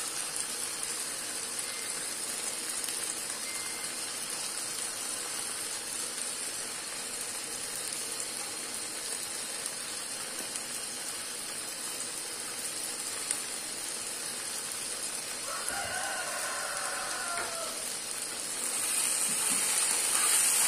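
A pan of rice sizzles and bubbles steadily on the stove. A rooster crows once, about three-quarters of the way through. Near the end the sizzling gets louder as a spoon stirs the pan.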